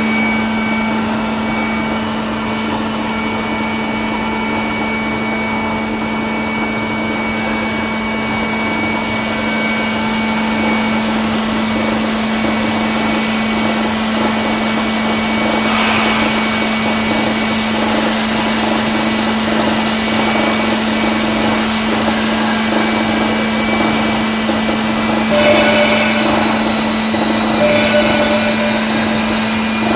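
Industrial machinery hum with a steady low drone and several high whines. About eight seconds in, a loud hiss starts and keeps going as quench water sprays onto the induction-heated, red-hot steel pipe.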